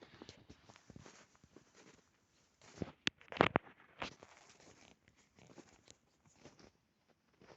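Irregular crunching and rustling close to the microphone, with a sharp click and a louder crunch about three seconds in.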